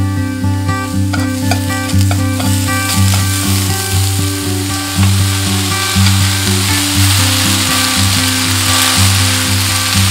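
Julienned potato, garlic and spinach sizzling in olive oil in a frying pan while being stirred. The sizzle grows stronger a couple of seconds in. Soft acoustic background music plays throughout.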